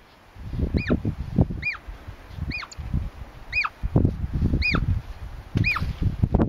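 Hoary marmot whistling, six short high whistles about a second apart, each rising then dropping steeply in pitch. Low rumbling noise runs underneath and between the whistles.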